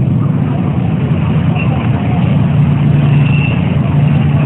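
Demolition derby cars' engines running, a steady low drone.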